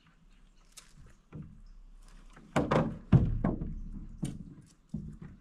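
A run of dull knocks and thunks on a small fishing boat as a limb line is handled from it. The loudest is a quick cluster about two and a half to three and a half seconds in, with a few single knocks after.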